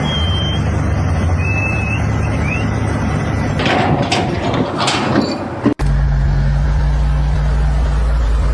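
Steady low machinery drone with a few short high squeaks in the first three seconds. A burst of clattering noise follows at about four to five seconds in, then it cuts abruptly to a deeper steady engine drone.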